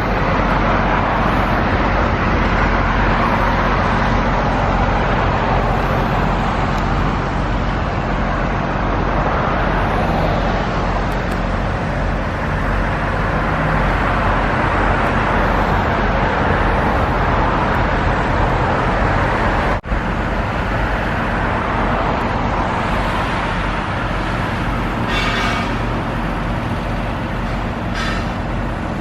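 Steady roar of passing road traffic, an even rush of tyre and engine noise. It drops out for an instant about two-thirds of the way through.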